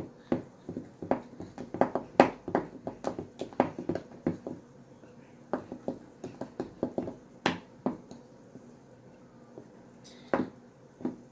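Sticky homemade slime mixture being worked, giving a run of wet clicks and squelches, quick and close together for the first few seconds, then sparser.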